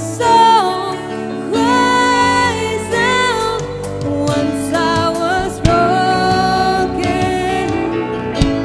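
Live worship band playing a gospel worship song: singers on microphones sing held notes over band accompaniment that includes electric guitar.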